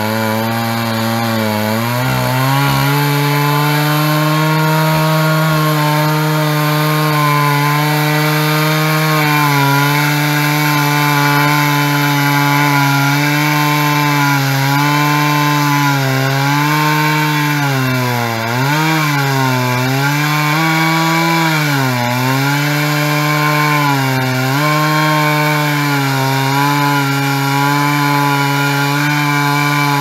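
Stihl 660 two-stroke chainsaw running at full throttle while ripping lengthwise through a log on a chainsaw mill. The engine pitch climbs about two seconds in, holds steady, and dips briefly several times in the second half before recovering.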